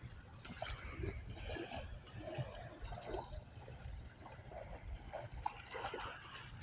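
A bird's long, thin, high whistle, falling slightly over about two seconds, with a few short high chirps around it, over a low steady rumble of wind and surf.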